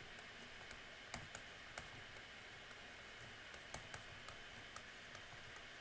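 Faint, irregular light clicks, a few scattered through each second, over a steady background hiss.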